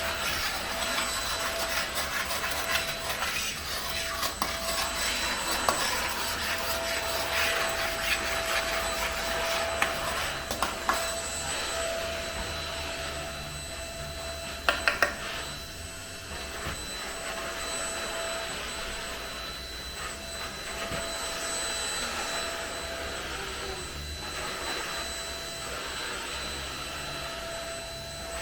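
A small electric motor running steadily with a whine, like a vacuum cleaner, with scrubbing and rubbing noises over the first half and a few sharp clicks about halfway through.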